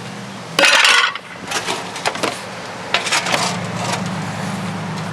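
Scrap metal handled with a loud clattering crash just under a second in, then scattered knocks and clicks. A truck engine idles steadily underneath and comes back in about three seconds in.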